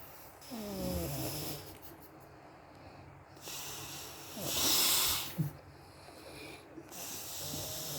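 A sleeper snoring: three long snores about three and a half seconds apart, the middle one the loudest.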